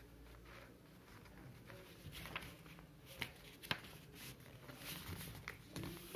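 Faint rustling and creasing of a sheet of coloured paper being folded by hand, with two sharp ticks a little after three seconds.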